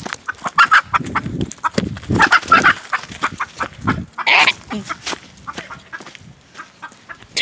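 A chicken squawking in several loud bursts, with footsteps through grass and leaves.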